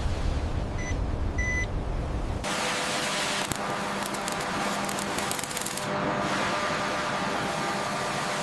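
Heavy machinery rumbling, with two short high electronic beeps in the first couple of seconds. About two and a half seconds in, the sound switches abruptly to a steady hiss over a low hum, with a run of fine crackling in the middle.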